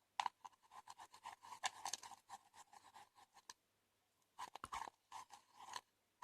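Glue slime being stirred in a mixing bowl: quick, irregular scraping and clicking of the utensil against the bowl through the thickening slime, pausing about halfway, then a second short burst of stirring.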